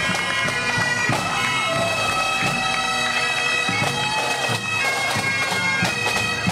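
Bagpipes playing a melody over their steady drone.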